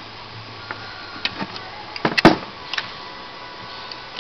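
Handling noise from working on an opened desktop computer: a few light clicks, with a heavier cluster of knocks about two seconds in.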